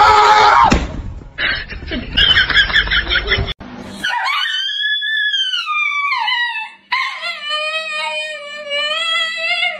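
A moment of music, then husky dogs howling: a long call that falls in pitch, followed near the end by a second, steadier howl.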